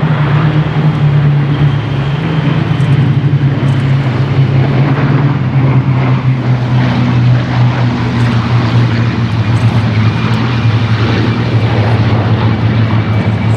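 Piston-engined warbirds flying past in formation: a Bristol Blenheim's two Mercury radial engines with four Mk I Spitfires' Merlin V12s, a loud steady engine drone whose pitch sinks slightly.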